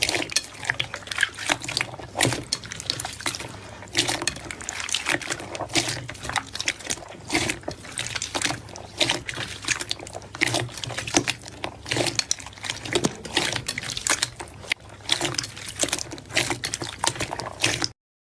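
Slime being squished and worked, a dense stream of irregular wet clicks and pops, cutting off suddenly near the end.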